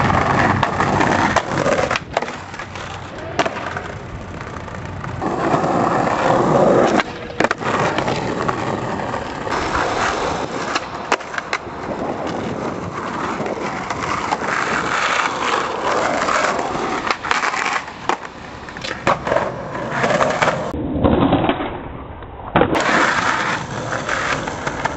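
Skateboard wheels rolling over concrete, broken by sharp board pops, clacks and landing impacts, in a run of short clips that cut suddenly from one to the next.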